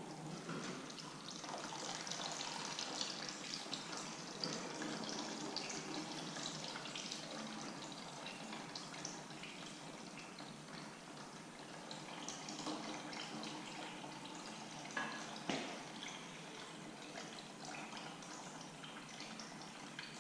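Water mixed with oil draining in a steady trickle and splash out of the drain-plug hole of a 6.0 LS engine's oil pan. The crankcase is full of water, about half a gallon.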